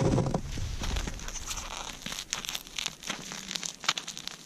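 Frost-crusted fabric mittens crinkling and crackling as they are handled close to the microphone, with a low rumble of handling in the first second.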